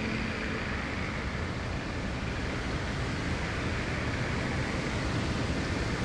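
Heavy rain with strong wind: a steady, even hiss over a low rumble.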